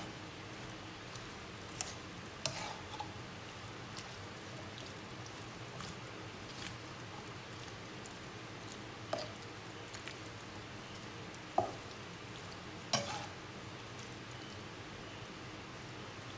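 Beef and onion rings sizzling in a nonstick frying pan as a slotted spatula stirs them. A few sharp knocks and scrapes of the spatula against the pan stand out, the loudest a little after 11 seconds and at about 13 seconds.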